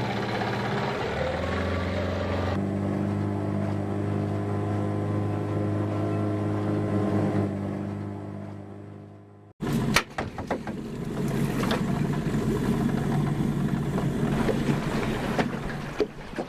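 Small outboard motor running as the boat pulls away, its note changing a couple of seconds in and then fading out. About ten seconds in this gives way to wind rumbling on the microphone aboard the small boat, with scattered knocks.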